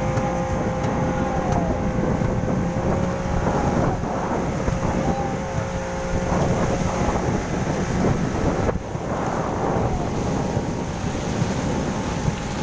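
Wind buffeting the microphone over rushing and splashing water as a solu bolon, a large Batak rowed canoe, moves fast under its paddlers. A steady held tone sounds through the first half and fades about seven seconds in.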